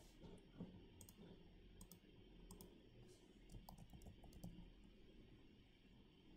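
Faint computer mouse clicks and keyboard keystrokes: scattered short clicks, with a quick run of keystrokes a few seconds in as a name is typed.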